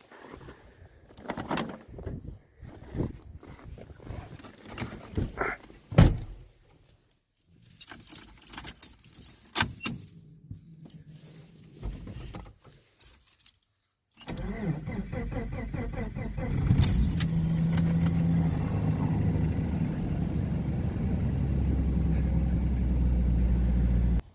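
Keys jangling and scattered clicks for the first dozen seconds. About 14 seconds in, the Jeep Comanche's AMC 4.0L straight-six turns over and starts, then from about 17 seconds runs steadily after sitting unused for a while.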